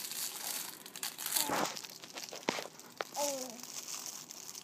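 Crinkling and crackling of clear plastic snack packaging handled by a toddler's hands as she digs for crackers, with a few sharp clicks. A short voice sound breaks in about three seconds in.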